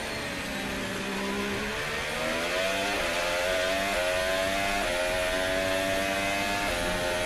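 2015 Lotus E23 Formula One car's Mercedes 1.6-litre turbocharged V6, heard onboard, accelerating hard out of a slow corner. The engine note climbs steadily and drops back at each of four quick upshifts, from third gear up to seventh.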